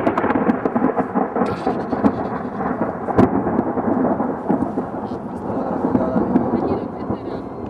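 Wind buffeting the camcorder's microphone: a loud, continuous rough rushing with crackles and clicks.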